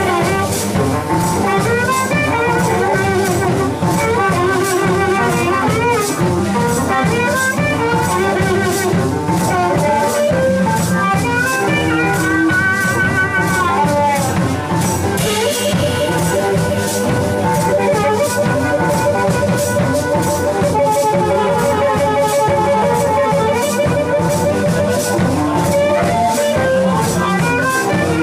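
Live blues instrumental: a harmonica played into a handheld microphone carries the lead with bent, wailing notes, including a long, wavering held note in the second half, over a hollow-body electric guitar and a drum kit keeping a steady beat.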